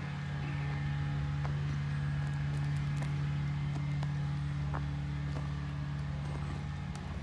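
Vintage Rolls-Royce engine idling steadily, with a few light clicks over it.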